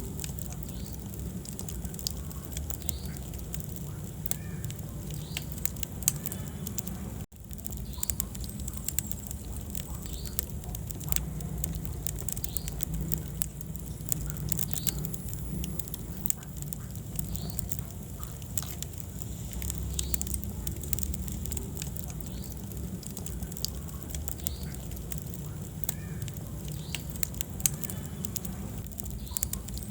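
Wood fire burning in a fireplace, with frequent sharp crackles and pops over a steady low rumble of flame. The sound cuts out for an instant about seven seconds in.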